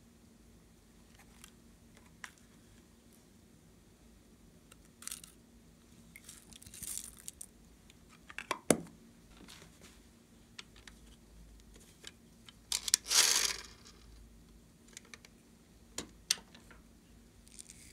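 A small plastic case being handled over a tray of slime: scattered plastic clicks and taps, with short rustles as sequins are shaken out of it. The loudest sounds are a sharp click about nine seconds in and a rustle lasting about a second around thirteen seconds in.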